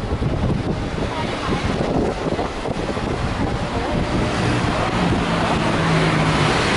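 Busy city street ambience: steady traffic noise from an avenue with a wet road, wind buffeting the camera microphone, and some passers-by talking. A low engine hum comes in about five seconds in.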